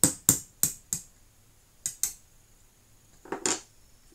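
Sharp metal taps of a small watch-repair tool driving the lock pin out of a plastic thermos lid's latch: four quick taps, two more a second later, then a duller double knock near the end.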